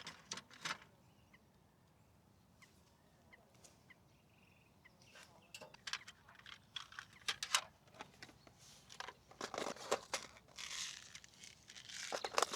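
Fishing gear being handled by hand: a run of sharp clicks and taps with crinkling, rustling handling noise, busiest in the second half.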